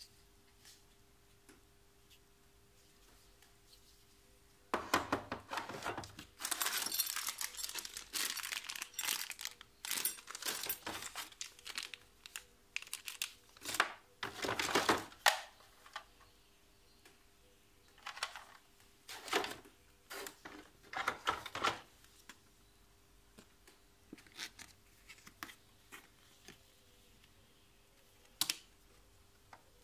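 Packaging crinkling and rustling in irregular bursts as items are lifted out of a plastic tool case, starting about five seconds in, then a few sharp clicks near the end.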